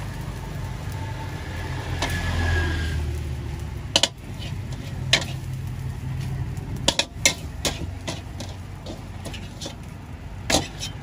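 A metal spatula scraping and knocking against a steel wok as fried rice is scooped out, with several sharp clacks spread through, over a steady low rumble.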